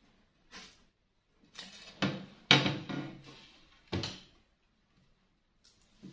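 Side panel of a desktop computer case being slid off and set down on the desk: a scrape and a few clunks, the loudest about two and a half seconds in and another sharp knock about four seconds in.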